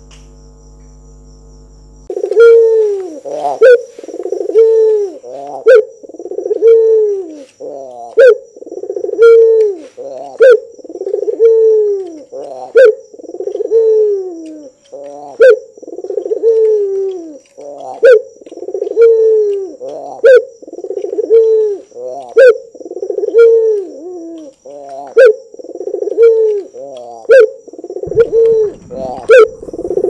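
Domestic ringneck dove (burung puter) cooing in its display call, a steady series of falling coos about one a second, starting about two seconds in.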